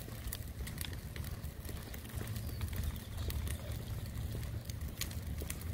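Footsteps on pavement with wind rumbling on the microphone, and a bird calling faintly.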